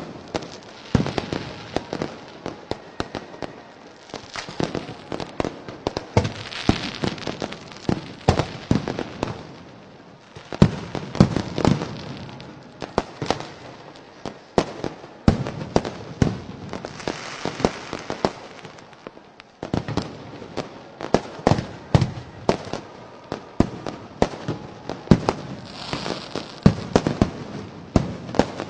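Fireworks and firecrackers going off in a dense, irregular string of sharp bangs and pops, with a few stretches of crackling hiss.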